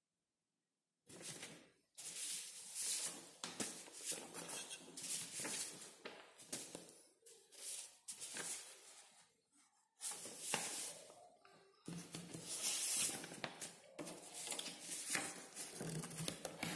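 Sheet of paper rustling as it is handled, in irregular stretches of a second or more with short silent gaps between them.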